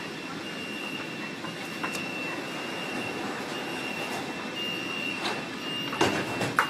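Metro door-closing warning: a high, steady beeping tone with short gaps over the hum of the stopped train. Near the end two loud knocks sound about half a second apart as the sliding doors shut.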